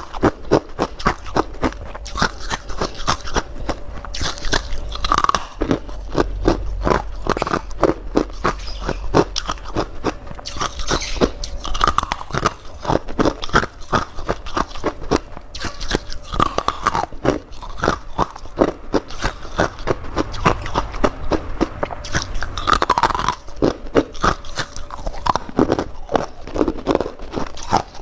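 Crunchy frost scraped from a humidifier being bitten and chewed close to the microphone: a dense run of irregular crunches.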